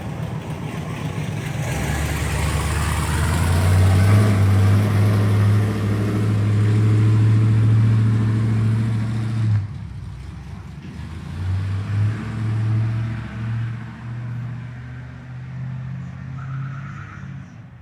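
Car engine pulling away and running at speed, with a low steady hum. It drops off suddenly about ten seconds in, then picks up again and eases off toward the end.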